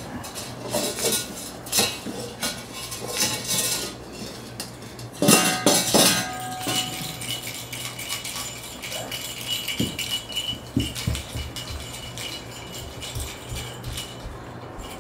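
Stainless steel bowl clattering and clanging on a hardwood floor as a toddler knocks it about, with a loud clang about five seconds in that leaves the bowl ringing for a few seconds.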